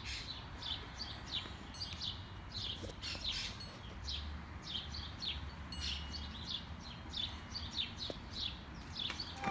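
Small songbirds chirping over and over: short, high, downward-sliding chirps, several a second, with a faint low rumble underneath.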